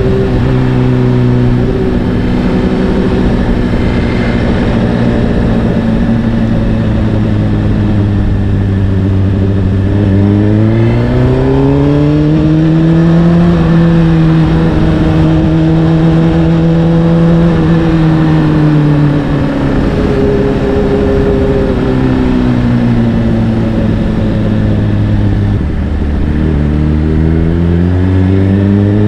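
Honda CBR600RR inline-four sport bike with an Akrapovic exhaust, ridden under load: the engine note holds steady, climbs as the revs rise about ten seconds in, holds high, then falls back off the throttle. Near the end the pitch steps down and starts climbing again.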